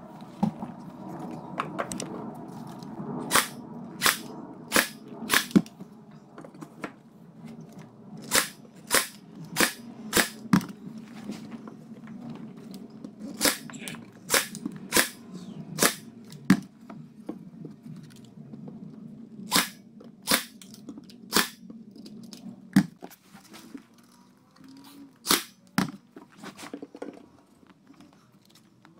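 Ryobi AirStrike cordless 23-gauge pin nailer firing headless pins into shiplap boards: sharp snaps in runs of four or five, about one and a half a second, with pauses between runs as the boards are repositioned.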